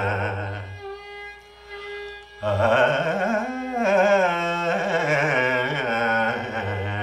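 A man singing a Sanskrit shloka in slow, free-time Carnatic style, his long notes bending and shaking with ornamented glides, with a Carnatic violin following his line. Around a second in the sound drops to a quieter held note, then a long glide rises and falls back.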